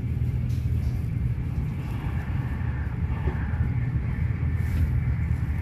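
Intercity train running at speed, heard from inside the passenger carriage: a steady, even low rumble of wheels and running gear.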